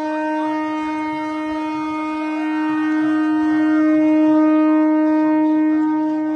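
Train horn sounding one long, steady blast that swells a little around the middle, with a crowd cheering underneath.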